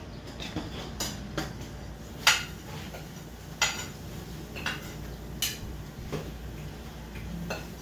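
Metal spoon clinking and scraping against a plate and the rim of a karahi as ground spices are scraped into the hot oil: about nine sharp clinks, the loudest a couple of seconds in and again about halfway.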